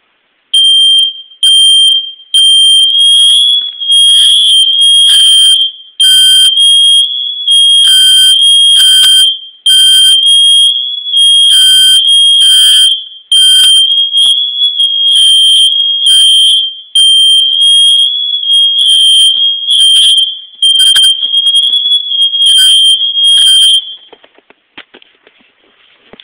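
Fire alarm being tested: a loud, high-pitched piercing tone sounding in repeated blasts of about a second each, then stopping about two seconds before the end.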